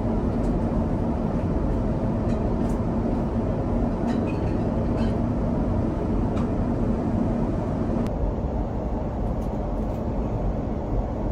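Steady airliner cabin noise in cruise, the low rush of airflow and engines heard from a window seat of a Starlux Airbus A350-1000. A faint steady hum runs underneath and fades about eight seconds in.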